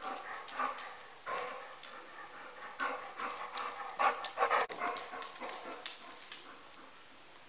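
Golden retriever puppy chewing and mouthing a plush toy, in irregular bursts that stop about six and a half seconds in.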